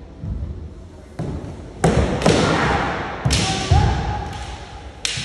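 Sharp cracks and thuds of bamboo shinai strikes and stamping feet in a kendo bout, about six of them roughly a second apart, each echoing in a large hall.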